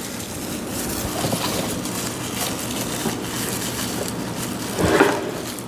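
Rustling and handling noise from wrapping and wooden toy tool parts being moved about on a table, with a brief louder sound about five seconds in.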